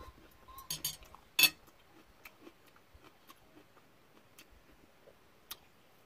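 Eating with metal chopsticks: quiet chewing and small clicks, with one sharp click about a second and a half in and faint scattered ticks after.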